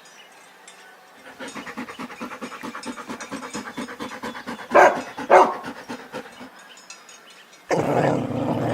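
A dog panting quickly and steadily, with two short, loud sounds in the middle, then a louder rough breathy noise near the end.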